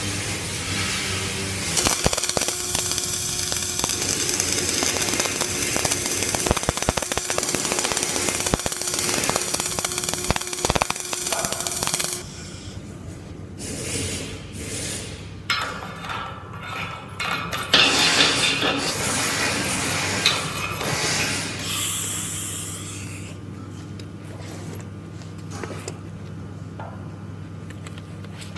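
Flux-core arc welding: the arc starts about two seconds in and crackles and sizzles steadily, with many sharp pops, then stops abruptly around twelve seconds. A steady low machinery hum runs underneath, and scattered knocks and clatter follow once the arc stops.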